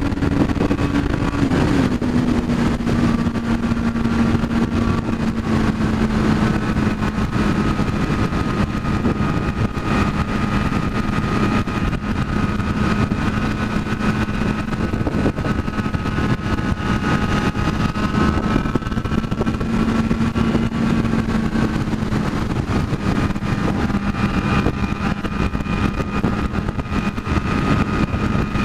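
Honda Hornet 600's inline-four engine cruising at steady highway speed under a heavy rush of wind over the microphone. The engine note steps down once, about a second and a half in, then holds steady.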